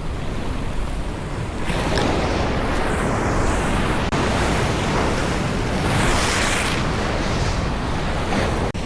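Wind buffeting the microphone in gusts, swelling about two seconds in and again about six seconds in, with water noise underneath.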